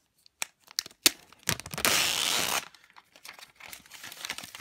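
Clear plastic shrink-wrap being torn open and stripped off a watch box. A few sharp crackles come first, then a loud tear lasting about a second, then softer crinkling as the film is pulled away.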